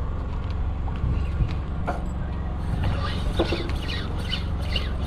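Steady low rumble of a fishing boat's engine. About three seconds in, a quick run of short, high squeaks starts and repeats two to three times a second.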